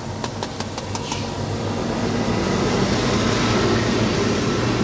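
A motor vehicle engine running with a steady low hum, growing louder over the first three seconds. About six quick clicks sound in the first second.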